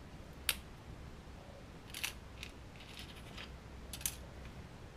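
A few sharp plastic clicks and taps as small O gauge model-wagon parts, the door sides and stanchions, are handled and set down on a cutting mat. The clicks come about half a second, two seconds and four seconds in, over a faint low hum.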